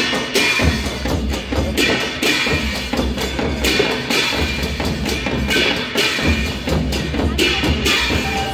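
Percussion music: drums keeping a deep, steady beat with bright, regularly repeating strikes above it.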